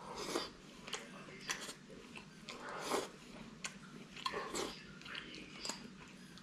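A person eating noodle soup with chopsticks, slurping and chewing mouthfuls of flat noodle pieces in tomato broth. The mouth sounds come in a string of short bursts, roughly one every second.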